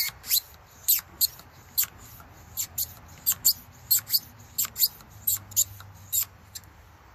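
Tiakia mini frame pump being hand-pumped into a Presta-valve bike tyre through its screw-on hose: a short, high-pitched sound on each push and pull of the handle, about two to three a second. The strokes stop a little after six seconds in.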